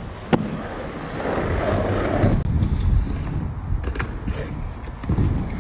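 Aggressive inline skates landing with a sharp clack, then wheels rolling over rough tarmac with wind rushing on the microphone. Near the end come a few more sharp clacks of skates striking a ramp.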